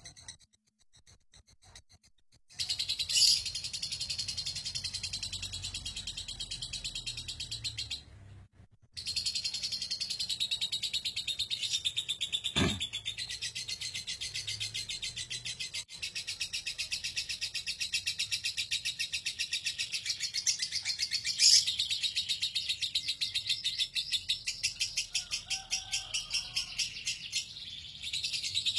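Lovebird 'ngekek': a long, unbroken run of rapid, high-pitched chattering chirps that starts about two and a half seconds in, breaks off briefly around eight seconds and then runs on without pause.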